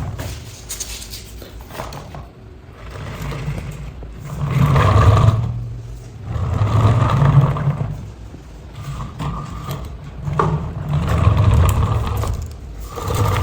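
Toy RC dumper truck's small electric motor and plastic gearbox running in repeated surges of one to two seconds, starting and stopping about five times.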